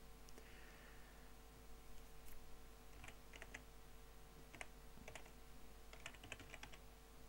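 Faint typing on a computer keyboard: scattered keystrokes in small, irregular clusters.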